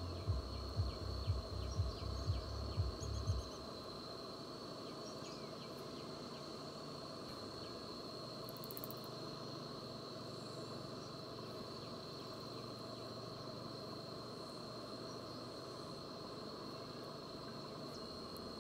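Insects droning on one steady high-pitched note. For the first three seconds or so a low thump sounds about twice a second, then stops.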